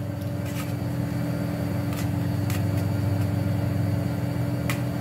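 A steady low hum throughout, with a few sharp clicks of a steel spoon against a steel plate as soaked sausage casings are stirred in vinegar.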